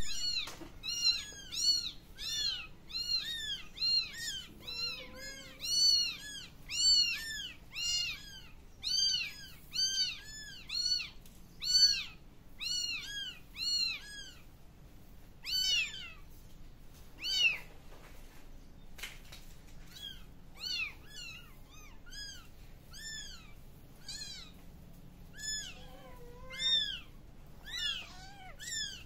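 Kitten mewing over and over in short, high-pitched mews, about two a second, with a few brief pauses around the middle.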